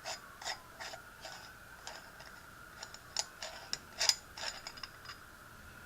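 Irregular small clicks and taps of metal parts being handled as the brass driver and base of an antique horn speaker are taken apart, a few a second, the loudest about four seconds in.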